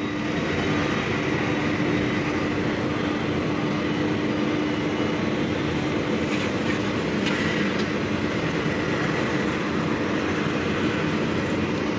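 Steady mechanical drone of a construction site and road traffic, with a constant low hum and no distinct events.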